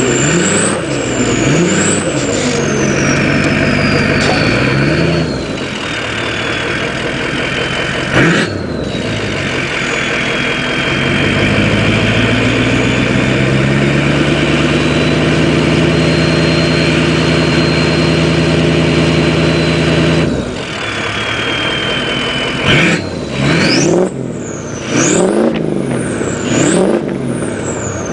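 2003 Ford 6.0L Power Stroke V8 turbodiesel being revved, its turbocharger giving a high whistle that rises and falls with the engine speed. The revs are held steady and high for several seconds in the middle, and there are several quick blips near the end with the whistle climbing sharply on each.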